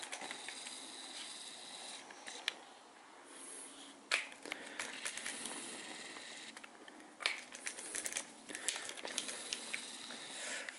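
Handling noise from a digital torque wrench being set for the rocker arms: scattered sharp clicks over light rustling as it is adjusted and moved about.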